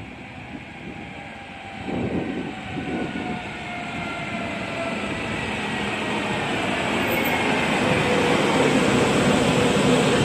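Train approaching on the line, its rumble growing steadily louder, with several whining tones that slowly fall in pitch.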